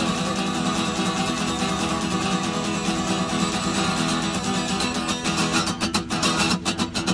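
Acoustic guitar strummed as an instrumental outro, chords ringing on; about five and a half seconds in the strumming turns to quick, choppy strokes.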